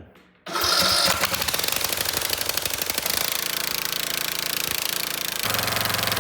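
Briggs & Stratton engine on a Troy-Bilt riding mower firing up about half a second in and running loudly, with the air filter off, after a new spark plug and plug wire end cured its no-start.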